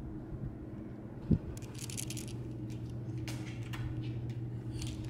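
A single thump about a second in, then light rattling and scraping in short bursts over a steady low hum.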